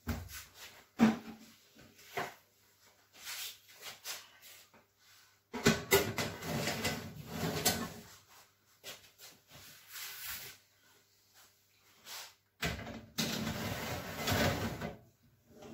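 Built-in Miele oven's door being opened with a few clicks, then two metal baking trays of bread loaves sliding in along the oven's rack runners one after the other, each with a couple of seconds of metal clatter.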